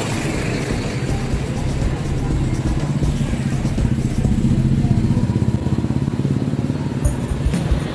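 Motorcycle engine running steadily at a fairly even speed.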